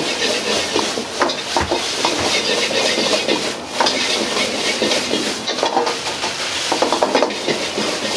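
Egg fried rice sizzling in a wok, with the metal ladle clacking and scraping against the wok many times as the rice is stirred and tossed.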